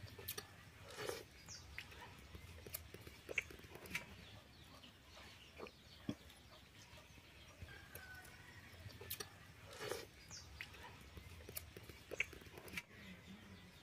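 Faint sounds of people eating rice and curry by hand from steel plates: chewing and scattered small clicks, with chickens clucking now and then in the background.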